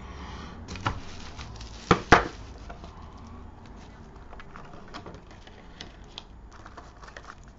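A clear plastic component organizer box is unclipped and opened, with two sharp plastic snaps about two seconds in. Small clicks and the rustle of plastic and paper follow as the lid is lifted and the contents are handled.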